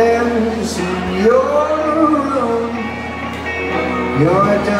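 Live rock band playing: a male lead voice sings long, sliding notes over electric guitar and drums, with cymbal strikes about once a second.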